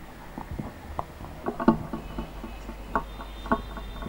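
Microphone stand being adjusted by hand: irregular knocks and scrapes picked up by the live microphone, over a low steady hum.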